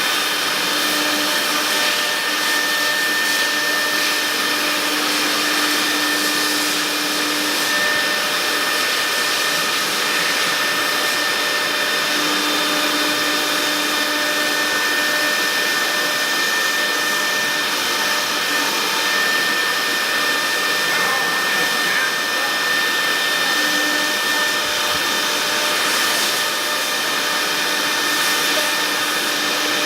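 CNC router running: a steady high-pitched spindle whine over a hiss, with a lower tone that comes and goes several times.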